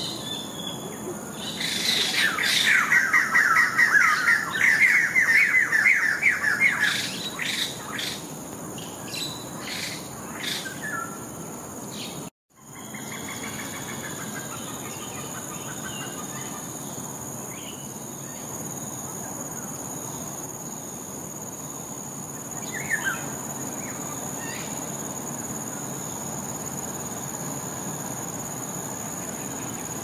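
White-crested laughingthrushes giving loud, harsh, rapid chattering calls for several seconds, trailing off into scattered single calls. After a break about twelve seconds in, a steady high-pitched drone takes over, with one short call later on.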